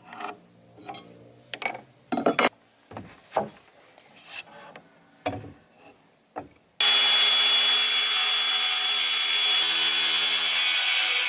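Scattered wooden knocks and clatter of framing lumber being handled, then about seven seconds in a power tool starts abruptly and runs loud and steady with a fixed high whine.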